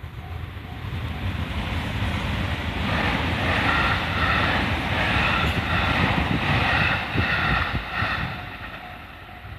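A train passing over a level crossing: running noise builds over the first few seconds, is loudest in the middle with high steady tones over it, and fades near the end. The crossing's warning bell rings in a quick repeating pulse at the start and again near the end, covered while the train goes by.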